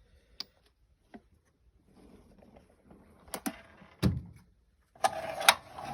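Steel drawers of a 1940 Snap-on K260 tool chest being shut and slid open, with a knock and a low thump, then the loudest part about five seconds in: a drawer sliding out with the metal tools inside rattling.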